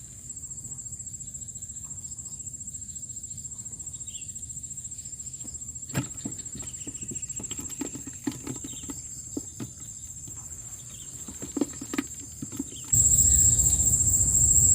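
Steady high-pitched chirring of crickets or other field insects, with scattered light knocks and rustles in the middle. About 13 seconds in, the overall level jumps and a low rumble comes in.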